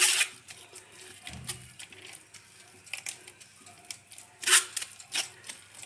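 Kitchen utensils being handled: a short scraping rustle right at the start and another about four and a half seconds in, with a soft thump in between and a few faint clicks.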